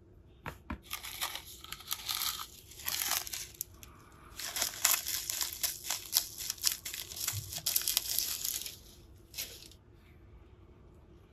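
Crinkling and rustling of two silica gel desiccant packets being handled in gloved fingers, with many small crackles, in two long spells.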